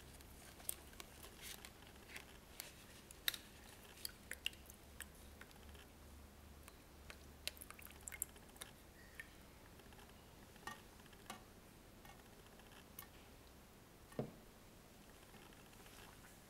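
Faint, scattered clicks and light taps of plastic flowerpots handled in gloved hands: a clear plastic nursery pot lifted out of a red plastic outer pot and set down, with a duller knock near the end.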